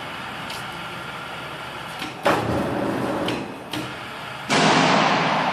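Workshop clatter over a steady background hum: a sudden rattling crash about two seconds in, a couple of knocks, then a louder crash about four and a half seconds in that dies away slowly.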